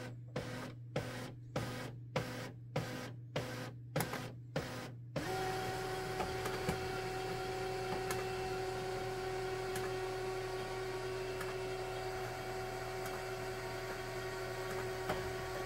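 HP LaserJet MFP M234sdwe laser printer going through its start-up cycle after being switched on. For about the first five seconds it pulses rhythmically, about two a second, then it settles into a steady mechanical running sound with a steady hum.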